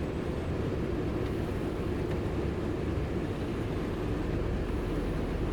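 Steady low rumble of a car driving, heard from inside the cabin: engine and road noise with no sudden events.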